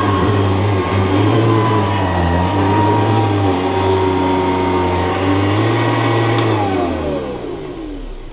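Hoover Decade 80 upright vacuum running steadily, its brush roll driven by a Eureka RD belt rather than the proper Hoover convertible belt, which makes a weird noise and is burning a little. About six and a half seconds in it is switched off, and the motor winds down with a falling pitch.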